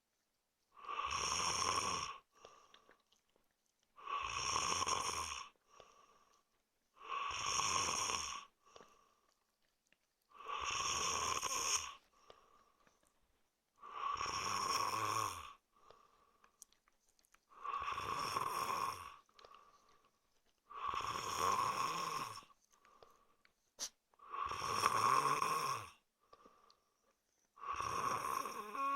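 A man snoring in a steady rhythm: nine long snores, one about every three and a half seconds, with quiet gaps between them.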